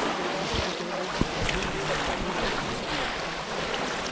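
Muddy pond water splashing and sloshing around people wading through it, with one sharp click about a second in.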